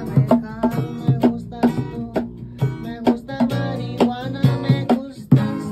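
Nylon-string classical acoustic guitar strummed in a steady rhythm, about three strokes a second, with chords ringing between the strokes.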